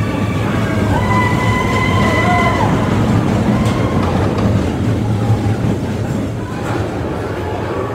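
Amusement-park ride vehicle rumbling along its track in a dark tunnel: a steady, loud rumble, with a few brief held higher tones over it about a second in.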